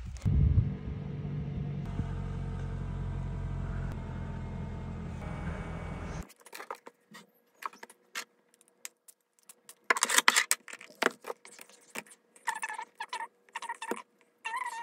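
A vehicle engine running steadily for about six seconds, then cut off suddenly, followed by scattered clicks and rattles.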